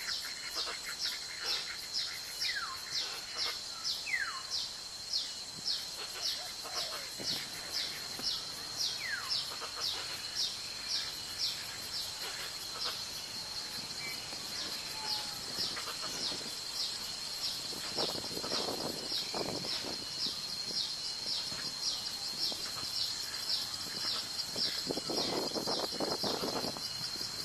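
Swamp ambience: insects keep up a steady high drone while a sharp high chirp repeats about twice a second, with a few falling bird whistles in the first part and two short spells of lower, rougher sound later on.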